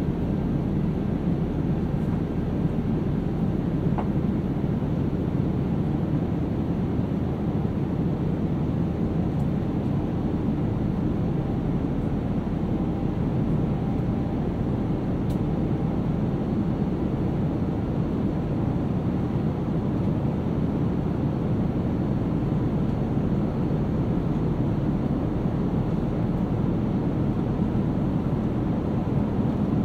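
Steady cabin noise inside a Boeing 787-9 airliner in flight: an even low rumble of airflow and the Rolls-Royce Trent 1000 engines, unchanging throughout.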